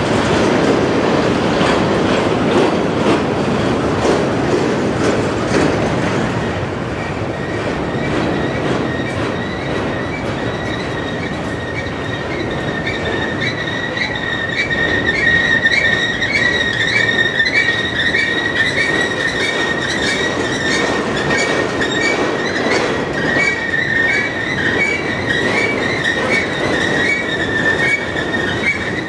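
Train cars rolling past at close range with clacking wheels. About halfway through, a steady high-pitched wheel flange squeal joins in and carries on.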